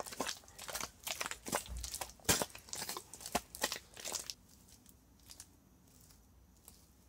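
Bare feet treading thick wet mud, working it into a brick mix: irregular squelches several times a second that stop about four seconds in, leaving only faint soft sounds.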